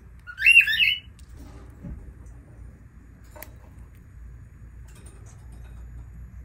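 Lovebird giving a quick burst of shrill chirps about half a second in. About three seconds later comes a single sharp click, then a few faint high chirps.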